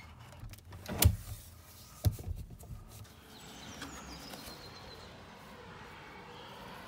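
A uPVC window sash being pushed open, with a loud clunk about a second in and a lighter knock a second later, then a faint steady background hiss.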